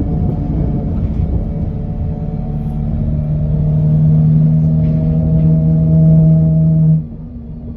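Alexander Dennis Enviro200 bus's engine running over a low rumble, with a loud steady droning hum, the strange noise, that swells and then cuts off suddenly about seven seconds in.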